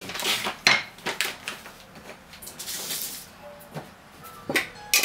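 Knocks, clicks and rustling of things being handled at a kitchen counter. The loudest knock comes just under a second in, with two more near the end.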